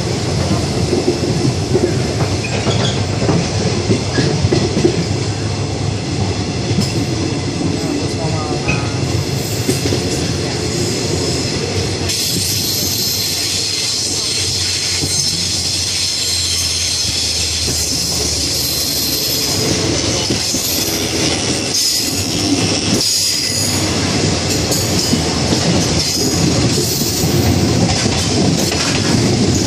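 Moving train heard from inside a passenger carriage: a continuous steady running noise of wheels on rails.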